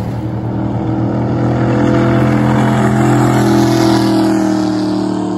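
Water ski race boat's engine running at high speed as the boat passes, growing louder to a peak a little past halfway, then fading.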